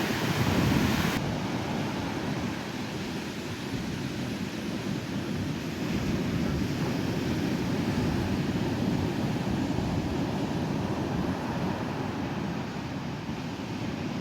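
Pacific surf breaking and washing up a sandy beach: a continuous rushing wash that swells near the start and again about halfway through.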